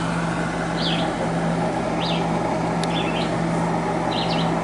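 Air conditioner unit running with a steady, loud hum. Short high bird chirps break in about once a second.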